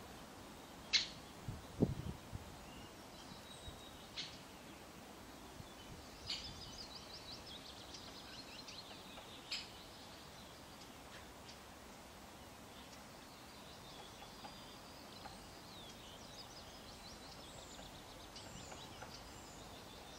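Small songbirds calling: a few sharp high chirps, with runs of quick high twittering notes midway and again near the end. There is a low thump about two seconds in.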